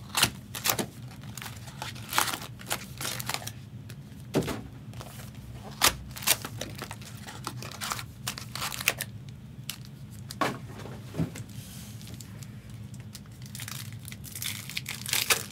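Plastic shrink wrap and foil trading-card packs crinkling and rustling as a booster box is unwrapped and its packs handled, with irregular sharp crackles throughout.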